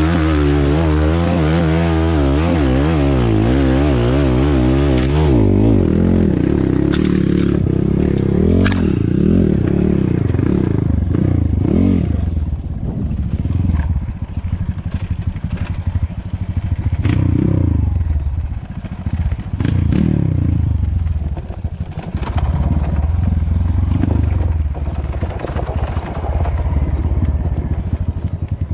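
Dirt bike engine at high revs, its pitch wavering quickly up and down for the first five seconds or so. It then drops to a lower, rougher running note, with the revs rising in repeated throttle bursts every few seconds as the bike is ridden over rough trail.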